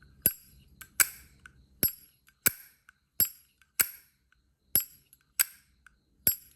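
Lid of a 1954 Zippo lighter being flipped open and snapped shut over and over, giving about nine sharp metallic clinks from the hinge and cam, roughly one every two-thirds of a second.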